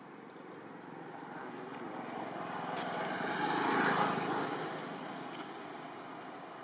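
A vehicle passing by: a steady noise that swells to a peak about four seconds in, then fades away.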